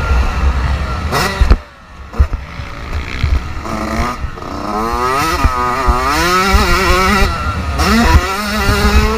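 Dirt bike engine revving hard on a motocross track, its pitch climbing and falling with throttle and gear changes; about one and a half seconds in the throttle snaps shut and the engine briefly falls quiet before winding up again. Wind buffeting on the onboard camera's microphone rumbles underneath.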